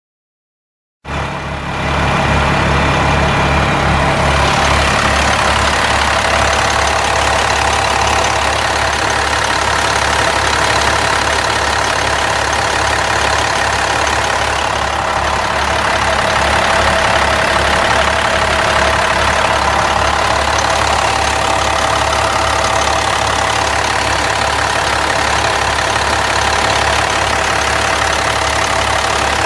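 International DT530 8.7-litre inline-six turbo diesel idling steadily, heard up close in the engine bay. It cuts in about a second in.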